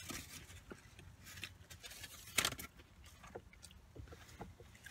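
Close-up chewing of fried fast food, irregular soft crunches and mouth noises, with one louder burst about halfway through, over a faint low hum.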